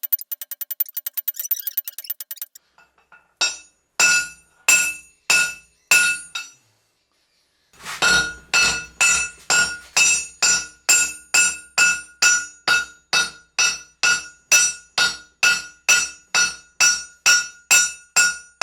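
Hammer blows on hot steel over an anvil, each with a bright metallic ring. A quick run of light taps for the first couple of seconds, then after a pause a few blows, and from about eight seconds in a steady run of about two blows a second.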